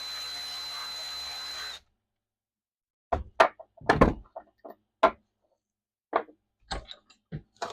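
A power tool's steady hum fades to a lower level and cuts off abruptly, followed by a string of irregular knocks and thunks of tools and parts being handled at a workbench.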